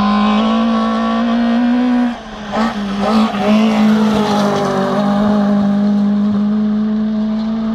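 Rally car engine at high revs as it approaches and passes close by, with a brief dip in the note about two seconds in. Part of the engine note slides downward as the car goes past and away.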